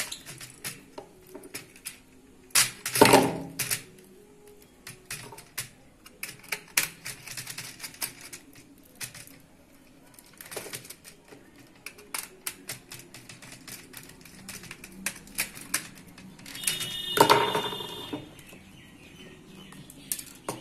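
Plastic switch modules and wiring being handled and fitted into a modular switchboard plate: irregular light clicks and taps, a louder knock about three seconds in, and a longer scraping sound near the end.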